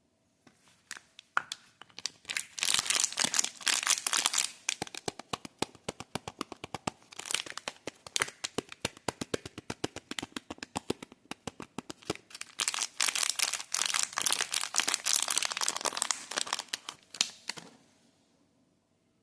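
Soap bar wrapper crinkled and torn open by hand, a dense run of crackles. It is loudest about two to five seconds in and again from about twelve to seventeen seconds, and it stops about eighteen seconds in.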